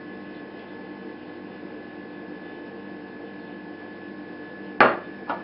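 Steady background hum with a thin high tone. Near the end there is a sharp click, followed by a lighter one, as a plastic spice jar is handled.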